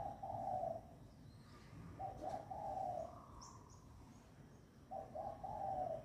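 A dove cooing: three phrases of low coos, each about a second long and a few seconds apart. Faint high chirps from another small bird come in between.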